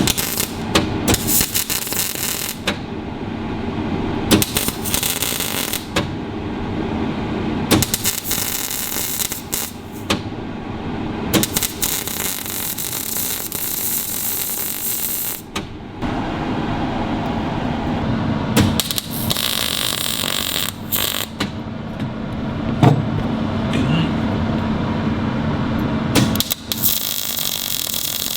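Power-tool work on steel: repeated bursts of harsh, hissing noise lasting from under a second to several seconds, with a steady low hum between them.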